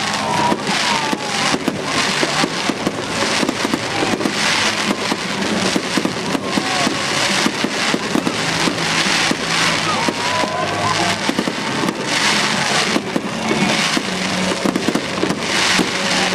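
Aerial fireworks going off in a dense, near-continuous run of overlapping bangs and crackling.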